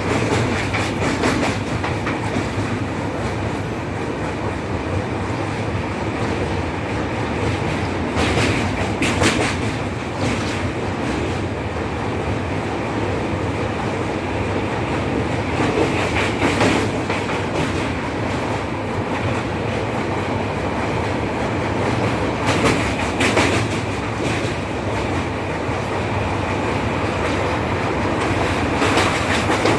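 Train running along the track: a steady rumble of wheels on rail, with clusters of clicks from the wheels passing over rail joints about every six to seven seconds.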